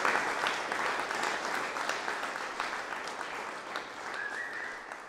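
Audience applauding, a dense patter of hand claps that fades out gradually.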